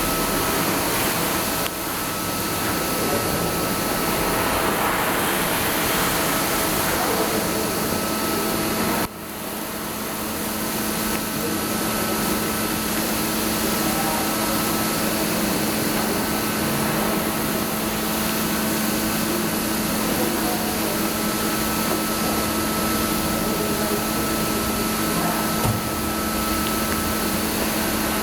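PowerJet Planet 50 industrial vacuum cleaner, a 4 hp two-phase continuous-duty machine, running steadily while sucking up copper slag. Its sound dips sharply about nine seconds in and builds back up within a second.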